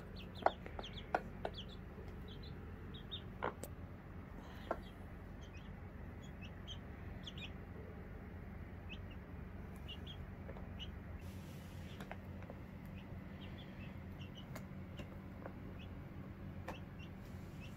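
Young chicks peeping: short, high peeps scattered all through, with a few sharp taps in the first five seconds.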